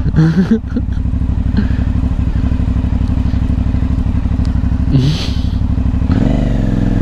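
Aprilia Shiver 900's V-twin engine running steadily while the motorcycle is ridden, its note changing about six seconds in.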